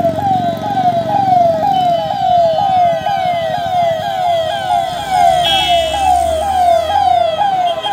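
Convoy vehicle sirens wailing in a fast, repeating up-and-down cycle, about three sweeps a second, with several sirens sounding together. A vehicle horn sounds briefly about five and a half seconds in.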